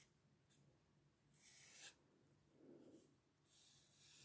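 Faint scratchy strokes of a felt-tip permanent marker drawing on paper, a few short lines with brief pauses between them.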